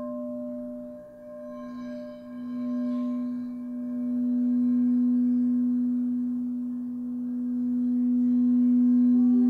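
Large frosted quartz crystal singing bowl sung by a mallet rubbed around its rim: one steady low hum with faint higher overtones, swelling and ebbing in slow waves.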